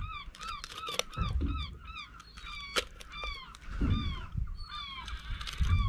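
Seabirds calling in a rapid series of short, rising-and-falling cries, several a second, over a low rumble, with a few sharp clicks.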